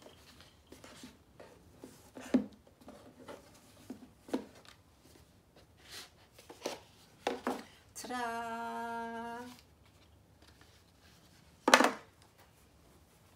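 A small cardboard gift box being unwrapped: soft rustles and light taps of ribbon, box and paper handled on a table. A steady, even tone with a hummed quality sounds for about a second and a half past the middle, and a short loud rustle comes near the end as the dust bag is pulled out.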